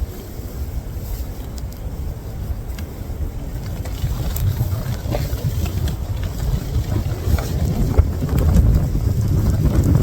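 Strong wind buffeting the microphone: a loud, uneven low rumble that grows stronger from about four seconds in, with a few faint clicks and rustles.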